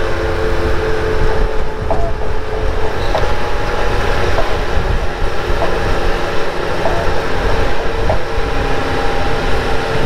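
Bobcat skid steer running steadily as it drives a 72-inch soil conditioner over loose graded dirt, with a few faint clinks along the way.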